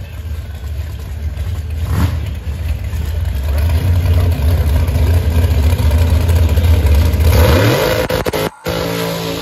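Dragster engine running with a deep, heavy rumble that grows louder, then revving up with a rising pitch about seven seconds in. The sound cuts out briefly near the end.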